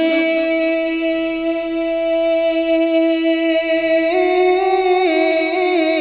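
A singer holding one long, steady note of a devotional Urdu manqabat, then stepping up in pitch about four seconds in and turning it into a wavering, ornamented phrase.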